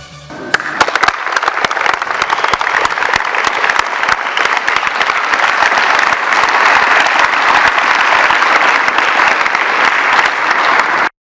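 A large group clapping together: sustained applause that starts about half a second in and cuts off abruptly near the end.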